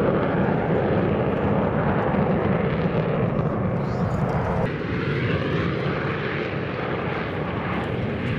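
Steady roar of an F-22 Raptor's twin afterburning turbofan engines as the jet flies a tight display turn. About halfway through, the sound changes abruptly to a fresh stretch of aircraft roar from a formation of jet fighters flying with a P-51 Mustang.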